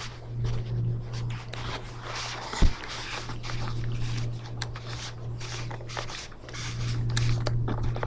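Rustling and scraping from a handheld camera being carried while walking on carpet, over a steady low hum, with one sharp knock about two and a half seconds in.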